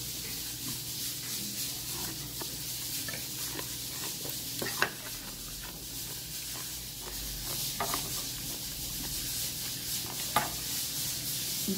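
Metal utensils clinking a few times against a plate, the clearest clinks about five, eight and ten seconds in, over a steady hiss.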